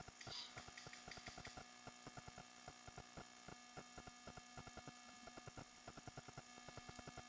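Near silence: a faint steady electrical hum with faint, irregular ticking several times a second.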